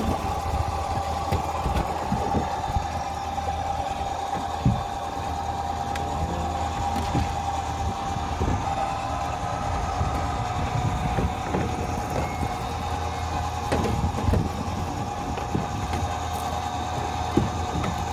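Small fishing boat's outboard motor and deck rope hauler running with a steady hum and a steady whine. Scattered knocks and thuds come as shrimp basket traps are hauled aboard and handled on deck.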